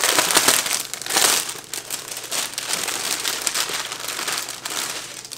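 Clear plastic packaging bag crinkling as it is pulled open and handled to take out a baby hair bow, loudest in the first second and a half, then rustling on steadily.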